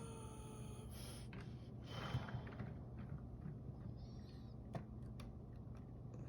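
A few faint clicks and knocks of Lego plastic as a built section is handled and set onto the city baseplate, over quiet room tone.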